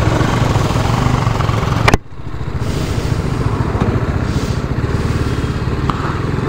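Motorcycle engine running while being ridden. About two seconds in there is a sharp click and a sudden drop, and then the engine sound builds back up.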